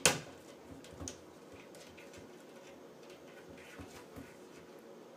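A cat pawing at a kitchen cabinet door: the door knocks loudly against its frame at the start and again more softly about a second in, followed by small scattered clicks as the cat works the door open.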